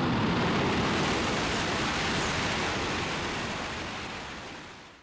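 Shinkansen bullet train passing at high speed: a loud, steady rush of wind and wheel noise that fades away over the last couple of seconds.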